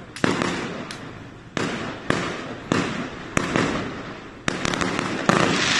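Aerial fireworks shells bursting overhead: a string of about seven loud bangs, roughly one every half-second to second, each trailing off in echo, with a run of quick crackles near the end.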